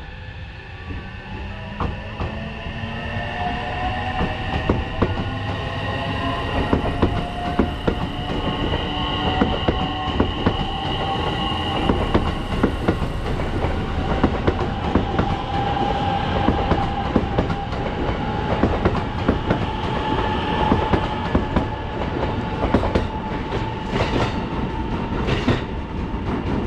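Coupled 225-series and 223-series electric multiple-unit train pulling out of a station and running past: the motor whine slowly rises in pitch as it gathers speed. The wheels clatter over rail joints throughout, with a few sharp clacks near the end.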